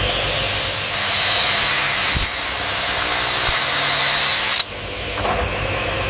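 Factory machinery running with a loud steady hiss over a low hum; the hiss cuts off suddenly about four and a half seconds in.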